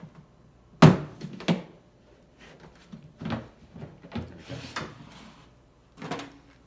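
Hard plastic lid of a cooler-style puppy incubator clunking and knocking as it is lifted, lowered and shut: about six separate knocks, the loudest about a second in.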